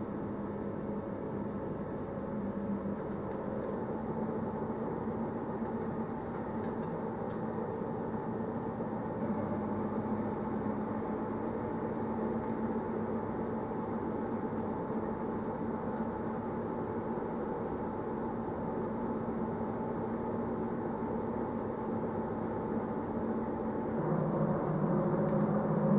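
Passenger train running steadily along the track, heard from on board as a continuous rumble with a steady motor hum. About two seconds before the end the hum grows louder and a lower tone joins it, as the train's drive changes speed or load.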